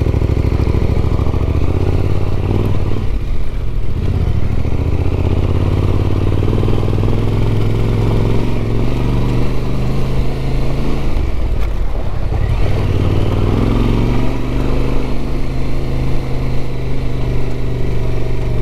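Motorcycle engine running under way, its note dropping and climbing again a few times as the revs change.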